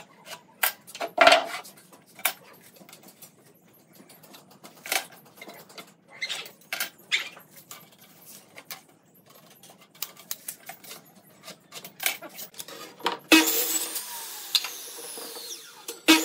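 Scattered light clicks and taps of a steel square, tape measure and pencil handled on pine boards and a wooden workbench. About thirteen seconds in, an electric miter saw's motor runs with a steady hiss and sliding whine.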